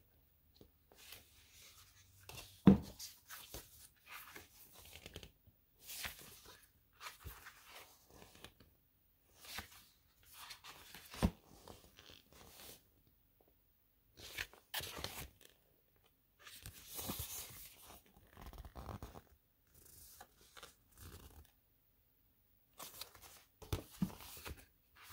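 Glossy pages of a large softcover photo book being turned and handled: intermittent paper swishes and rustles with a few sharp taps, the loudest a few seconds in.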